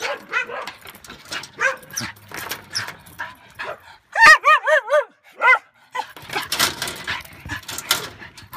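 Dog whining and yipping, with a loud quick run of high, rising-and-falling whines about four seconds in and another just after. Short clinks and scrabbling sounds come between the calls.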